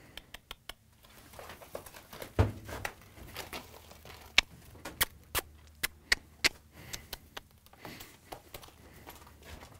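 A horse's hooves scuffing and striking on gravel as it rears and pulls back on the lead rope: a scatter of sharp clicks and knocks, with one heavier thump about two and a half seconds in.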